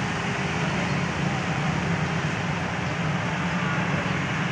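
Steady road noise of a moving vehicle: a constant low engine hum under an even hiss of tyres on a wet road.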